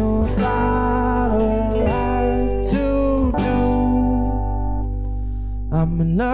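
Americana band playing live: strummed acoustic guitar with electric guitar, bass guitar and drums. The cymbals drop away about four seconds in and return near the end.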